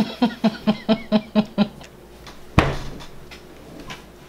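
A young man's stifled, closed-lipped laughter: a quick run of about ten short giggles in the first second and a half, held back. A single sharp knock follows a little later.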